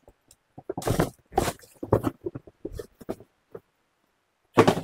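Tissue paper crinkling and cardboard shoe boxes being handled, with lids lifted and boxes shifted, in an irregular run of short rustles and scrapes and a louder scrape near the end.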